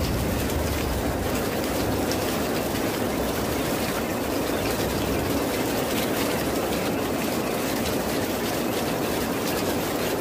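Steady rain: an even hiss with faint ticks of individual drops.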